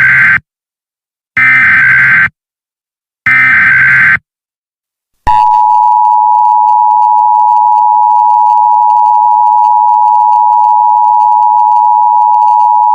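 Emergency Alert System SAME header: short bursts of screechy digital data, the last three of them heard here about two seconds apart. About five seconds in, the EAS two-tone attention signal starts and holds steady for about eight seconds. Together they announce an emergency alert broadcast.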